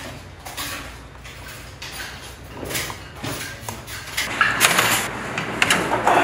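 Rice paddle scraping and scooping cooked rice against the inner pot of a large electric rice cooker as small ceramic bowls are filled, with a few sharper knocks in the second half.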